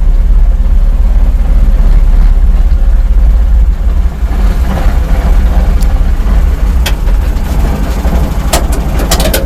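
Engine of a homemade self-propelled vehicle running steadily at medium throttle in fourth gear while driving, with a few sharp knocks or clatters in the second half.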